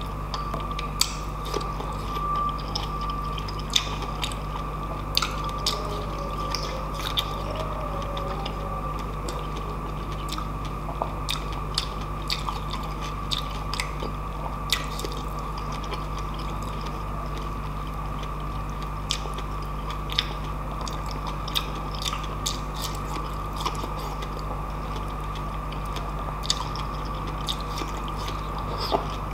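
Close-miked chewing of soft white-fleshed dragon fruit, with frequent small sharp mouth clicks and smacks, over a steady background hum.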